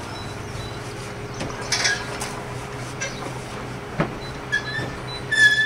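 Steel scaffold tubes and fittings being handled while the scaffolding comes down: a few sharp metal knocks over a steady low hum, with a short high squeal near the end.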